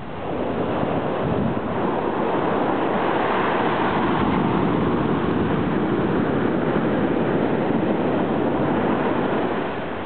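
Ocean surf washing up the beach: a steady rushing wash that builds over the first couple of seconds and eases off near the end.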